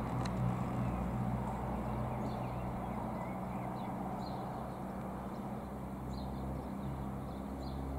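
Distant low rumble of a high-flying four-engine Boeing 747 freighter, steady and easing slightly, with a few faint high chirps that sound like small birds.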